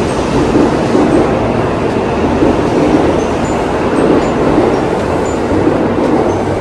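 Tokaido Shinkansen train running: a loud, steady rumble of rail and car noise with no let-up.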